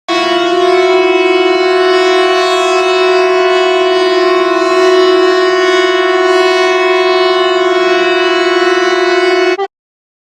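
Civil defence siren sounding one long steady tone, without rising or falling, that starts abruptly and cuts off suddenly near the end.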